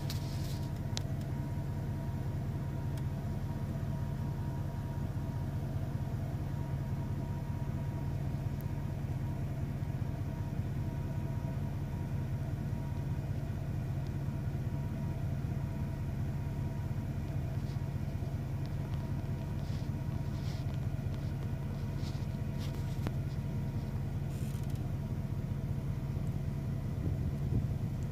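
Steady low motor hum, unchanging throughout, with a few faint brief clicks.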